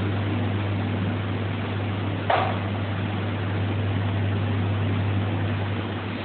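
Steady low hum of machinery or ventilation in a room, with a single short knock a little over two seconds in.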